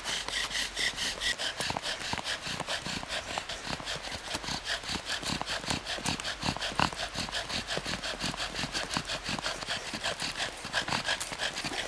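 Double-loop bow drill in a fast, even rhythm of about four strokes a second: a wooden spindle spinning back and forth in a wooden hearth board. It squeaks in the first second or so, then turns to a dry grinding as the wood heats to smoking, working up an ember.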